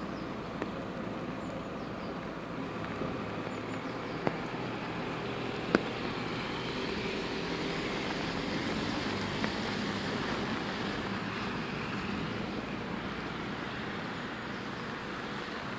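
Traffic on a wet city street: a steady hiss of tyres and engines that swells a little in the middle as a vehicle goes by. Two short sharp clicks about four and six seconds in.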